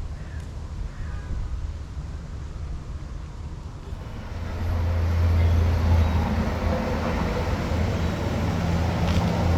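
A motor vehicle's engine rumble in street traffic, growing louder about four and a half seconds in as it passes close by.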